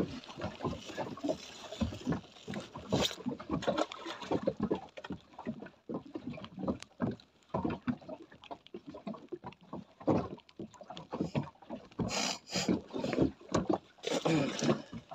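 Small boat at anchor: water slapping against the hull, with irregular knocks and clatter on the deck and two brief rushing sounds near the end.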